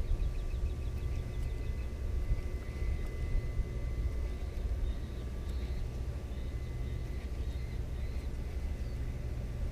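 Outdoor ambience: a steady low rumble with two faint steady high tones and a few faint bird chirps, more of them in the second half.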